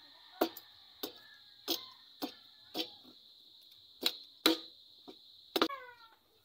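Small hammer tapping on a knife, about nine sharp metallic strikes in an uneven rhythm, fitting the tang into its handle. The strike near the end rings out briefly.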